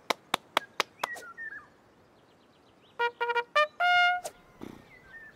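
A quick run of about six hand claps. About three seconds in, a trumpet plays a few short, quick notes, then holds a higher note for about half a second.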